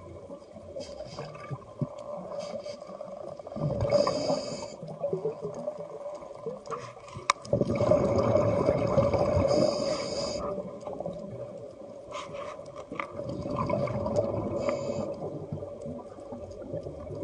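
Water sloshing and gurgling in several surges over a steady hum.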